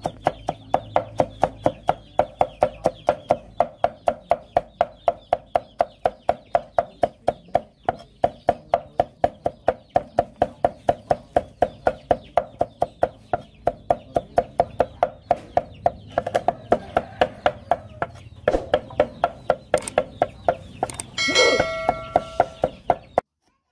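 Cleaver mincing garlic on a thick round wooden chopping block: a steady run of sharp knocks, about four a second, that stops shortly before the end.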